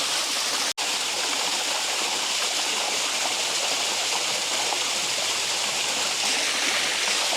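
Waterfall pouring into a forest pool, a steady rushing of water. It is broken once by a split-second dropout just under a second in.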